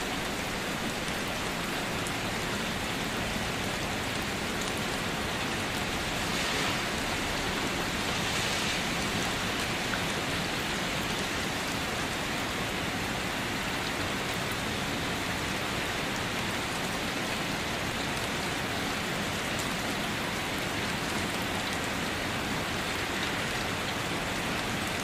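Steady rain falling, an even hiss that swells slightly for a few seconds about six seconds in.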